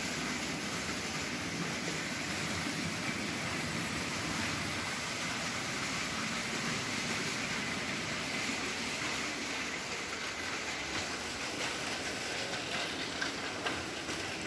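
A long train of nested metal shopping carts being pushed past, making a steady rolling rattle and clatter that cuts in abruptly.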